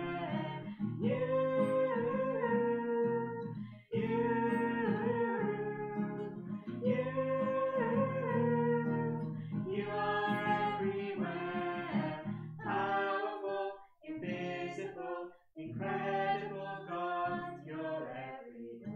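Music: a song with a voice singing over acoustic guitar, in phrases with short pauses.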